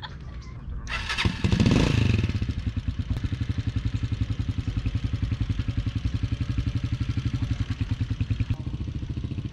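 Small motorcycle engine revved hard about a second in as the bike pulls away carrying two riders, then running at low speed with an even, pulsing chug. The note eases slightly near the end.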